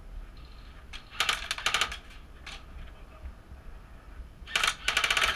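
Airsoft rifle firing two rapid bursts, each a quick run of sharp clacking shots at roughly a dozen a second: one about a second in, the other starting near the end.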